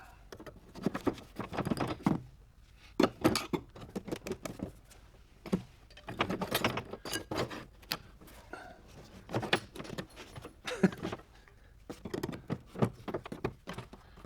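Metal hand tools clinking and tapping on metal: irregular clusters of sharp clicks and knocks, with short pauses between them.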